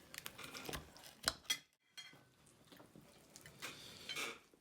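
Kitchen utensils and dishes clinking and clattering: a scatter of sharp clicks, the loudest about a second in, with a brief lull after it and some fainter scraping near the end.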